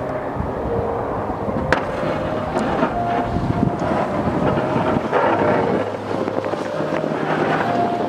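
Ford F-250 pickup with a Boss DXT plow driving through snow toward the microphone, with wind buffeting the microphone.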